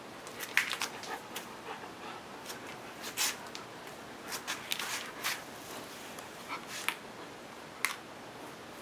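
Scattered light clicks and taps from a dog and a cat moving over a wooden floor and foam mat, batting at a fishing-rod wand toy, over a steady hiss.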